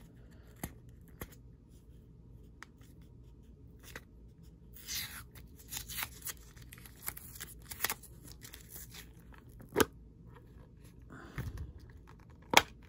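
Green tape being peeled and torn off a clear plastic card container, with the hard plastic clicking as it is handled and pried open: a longer tearing sound about five seconds in and two sharp clicks near the end.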